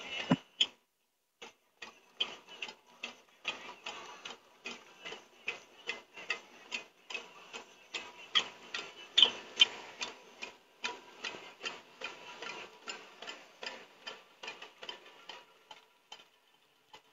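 A rapid run of sharp ticking clicks, about four or five a second and uneven in loudness, with a short break just after the start; they stop near the end.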